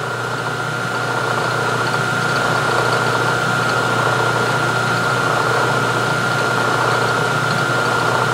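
Milling machine spindle running with a 5/8-inch end mill turning at about 640 RPM: a steady motor hum with a steady high whine.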